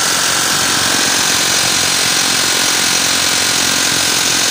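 Impact wrench hammering steadily on a bolt, a loud continuous rattle.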